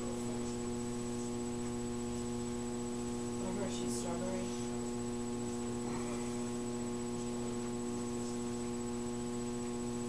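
Steady electrical mains hum, a low buzz with a faint high-pitched whine above it, holding at a constant level.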